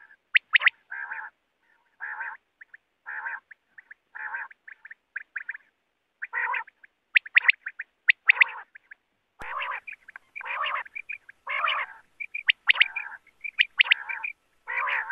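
Quail calling over and over: short rasping notes, each about a third of a second long, alternating with quick runs of two or three sharp, high notes.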